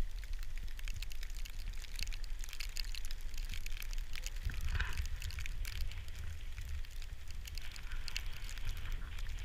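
Skis sliding and scraping over groomed snow, a steady crackling hiss, with wind buffeting the microphone as a low rumble.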